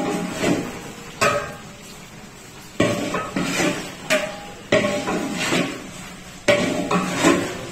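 A long metal ladle knocking and scraping against a large aluminium cooking pot during stirring, about one sharp clang a second, each ringing briefly.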